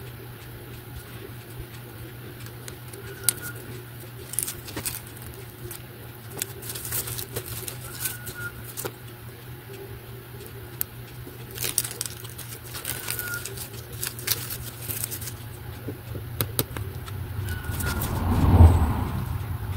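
Thin protective plastic film being peeled by hand off cut acrylic mirror pieces: scattered crinkling and crackling rustles over a steady low hum. A heavier low rub or thump near the end is the loudest moment.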